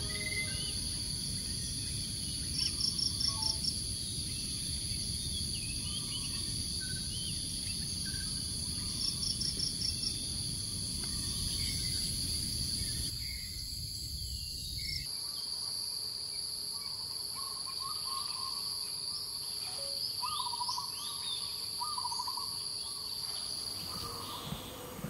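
Tropical forest ambience: insects buzzing in a steady, high, even tone, with two short runs of about six quick chirps in the first ten seconds. A low rumble underneath cuts off about fifteen seconds in, and several short bird calls follow from about twenty seconds in.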